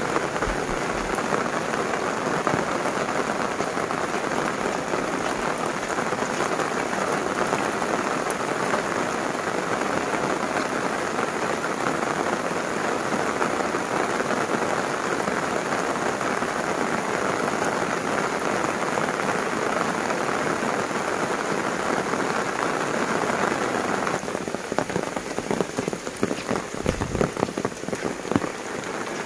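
Heavy rain falling in a steady, dense hiss. Near the end it drops in level and becomes patchier, with separate close drop impacts standing out.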